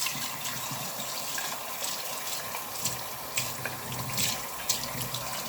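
Kitchen tap running into a sink while dishes are washed by hand, with a few short knocks of dishes against each other or the sink.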